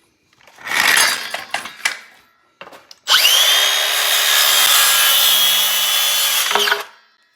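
An electric power saw cutting through framing lumber. There is a shorter rasping burst about a second in, then a steady cut of about four seconds with a high whine that stops near the end.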